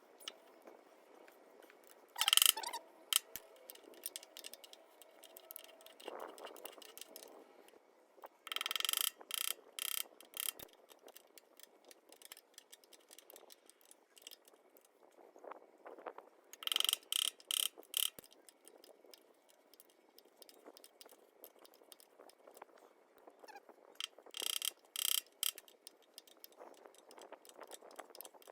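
Ratchet wrench clicking in four short runs of rapid clicks, several seconds apart.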